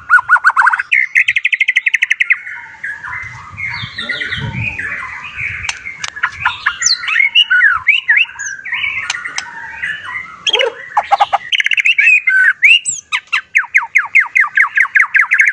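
White-rumped shama singing a loud, fast, varied song of whistled phrases, with quick runs of repeated notes about a second in and again near the end.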